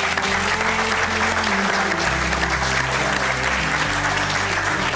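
Studio audience applauding steadily, with instrumental music and a bass line playing underneath.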